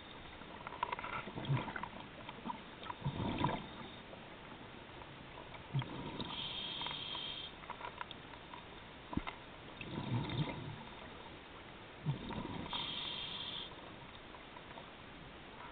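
Scuba diver breathing through a regulator, heard underwater: a hissing inhale twice, with rumbling bursts of exhaled bubbles in between.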